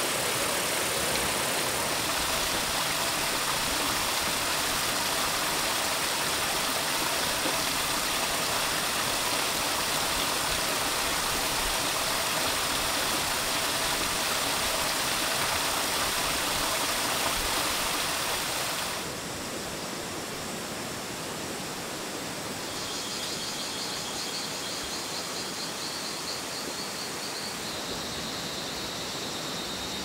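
Steady rushing outdoor noise that drops to a quieter background about two-thirds of the way in, after which a high, rapid pulsing trill comes in, followed by a steady high tone near the end.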